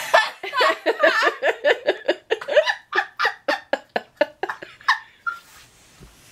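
A woman laughing hard in quick bursts, about four or five a second, that fade out about five seconds in.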